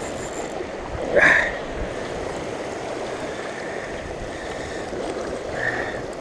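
Sea surf washing steadily around the shore rocks, with one brief louder sound about a second in.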